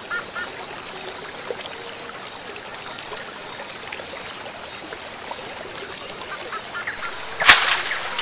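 Shallow forest stream trickling over rocks, with faint scattered bird calls. A single sharp, loud impact comes about seven and a half seconds in.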